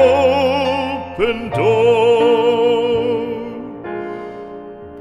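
Classical art song: a singer holds a long note with vibrato over piano accompaniment, then the voice stops and piano chords ring on and fade near the end.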